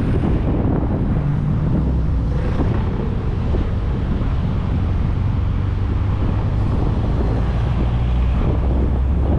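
Wind rushing over an external camera microphone on a moving 1994 VW Gol, over the steady low drone of its 1.6 L CHT four-cylinder engine at highway speed.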